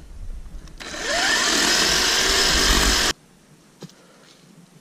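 Black+Decker cordless electric chainsaw spinning up about a second in with a rising whine and cutting a fallen log for about two seconds, then cutting off suddenly.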